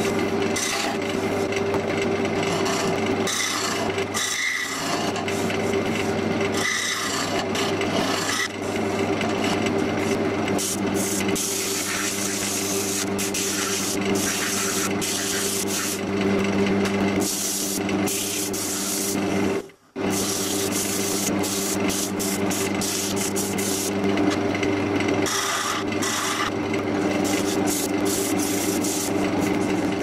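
Wood lathe running with a steady motor hum while a hand tool or abrasive is held against the inside of a spinning wooden bowl, giving a continuous dry scraping rasp. The sound breaks off for a moment about two-thirds of the way through, then resumes.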